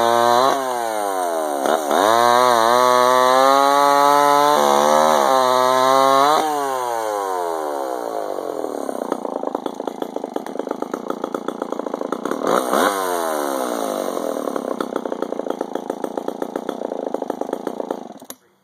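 Echo CS-601 two-stroke chainsaw revved to full throttle, dipping briefly twice, then easing down to an uneven idle. It is blipped once more and then shut off near the end.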